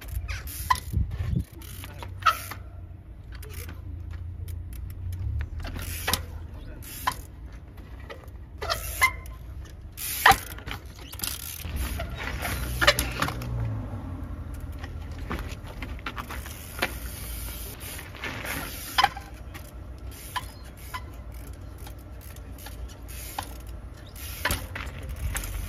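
Trials mountain bike being ridden and hopped: irregular sharp knocks and clicks from tyre and frame impacts, over a steady low rumble.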